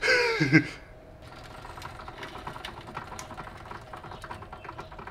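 A jack being let down slowly under the car's newly fitted coilover suspension: a steady run of fast, fine clicking over a faint hiss. A brief voice comes first.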